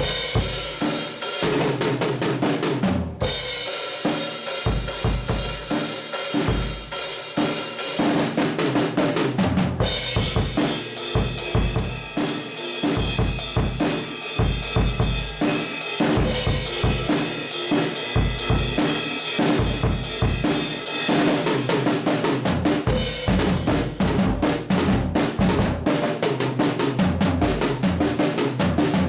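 A Millenium drum kit, rebuilt with Remo heads and fitted with Paiste 101 cymbals, played as a continuous beat: bass drum, snare and tom hits throughout. Through the middle stretch the cymbals wash steadily over the beat, then thin out again near the end.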